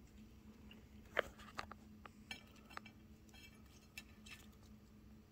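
A handful of sharp, light clicks and crackles over a faint steady hum, the loudest about a second in: crispy fried chicken skin being handled on a plate.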